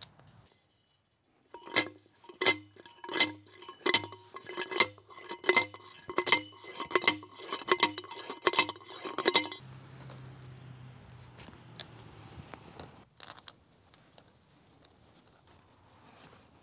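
Hand post driver pounding a steel fence T-post into the ground: about eleven ringing metal-on-metal clanks, one every three-quarters of a second, stopping about two-thirds of the way through.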